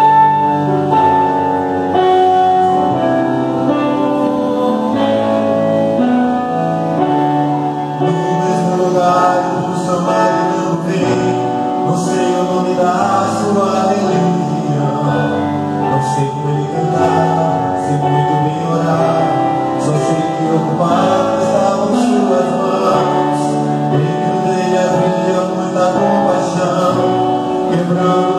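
Gospel song sung by a small group of men into microphones, over keyboard accompaniment; a beat joins about eight seconds in.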